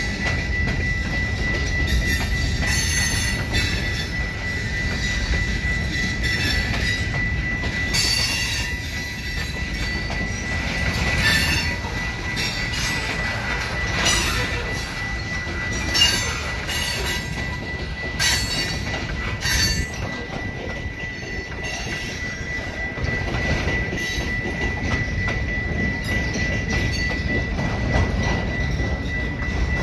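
Freight train cars rolling past while the train is backed up, a low rumble with the wheels knocking over rail joints every few seconds and a steady high-pitched wheel squeal.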